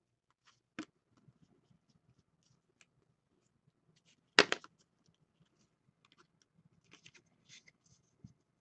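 Trading cards being handled and sorted by hand: faint sliding and rustling of card stock, with a short click about a second in and one much louder sharp snap about four and a half seconds in.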